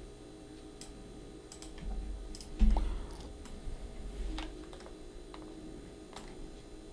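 Computer keyboard and mouse clicks, a scattered handful of sharp taps, with one low thump about two and a half seconds in.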